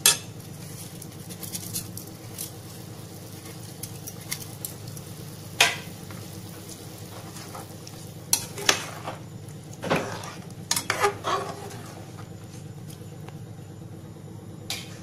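Perforated steel ladle stirring rice into boiling liquid in an aluminium pressure cooker, with sharp clinks and scrapes against the pot every few seconds over a steady bubbling hiss.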